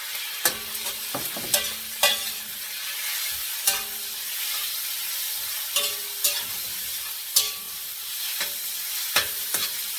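Chopped marinated chicken frying with garlic in hot oil in a pan, sizzling steadily. A spatula stirs it, scraping and clacking sharply against the pan about nine times at uneven intervals.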